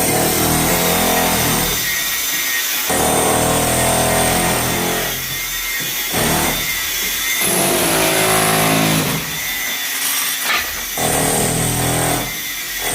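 Electric power drill running in stretches of two to three seconds, stopping and starting again about four times, with a steady pitch in each run.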